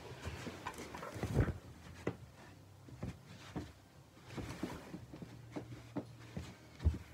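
Handling noise from a mattress being shifted about: soft thumps, knocks and rustling, with the loudest thumps about a second and a half in and near the end.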